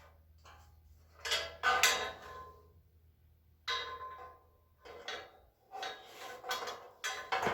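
Metal shelving parts clanking and rattling against each other as they are handled, in several short bouts with a light metallic ring.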